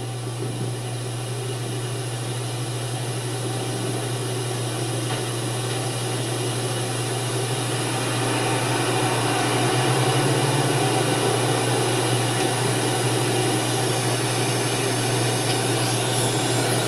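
A steady low hum with an even hiss over it, a little louder from about eight seconds in. There are no strokes or clicks.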